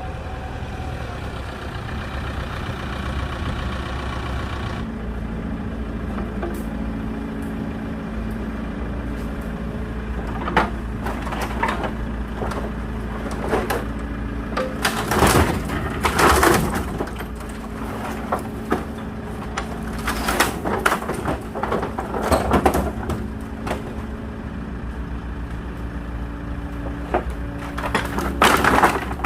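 Small excavator's diesel engine running steadily, with wood cracking and crashing in bursts as the machine pushes and crushes pallet firewood. The loudest crashes come around the middle and again near the end.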